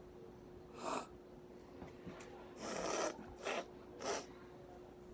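A boy sniffing and breathing sharply through a runny nose, about four times, the longest about two and a half seconds in. The sniffing comes from holding a hot cinnamon fireball candy in his mouth. A faint steady hum lies underneath.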